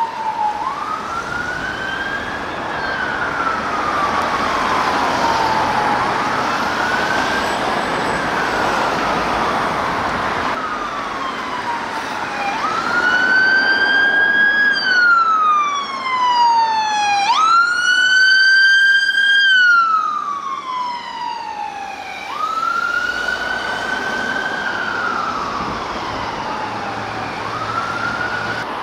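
Emergency vehicle siren on a wail: each cycle rises quickly, holds, then falls slowly over a few seconds, repeating about every five seconds over vehicle and road noise. It is loudest and clearest in the middle as the vehicle passes close.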